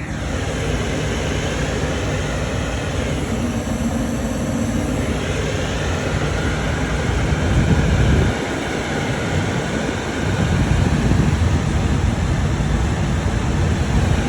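Gas furnace running, a loud steady rumble of the burners and fan, swelling louder about halfway through and again near the end.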